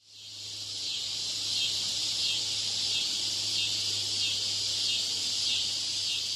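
Cicada buzzing: a steady, high-pitched insect drone that swells slightly about every two-thirds of a second and fades in over the first second, with a low steady hum underneath.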